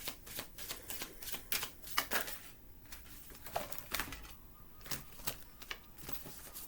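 A deck of oracle cards being shuffled by hand: quick runs of card clicks and flutters, broken by a couple of short pauses.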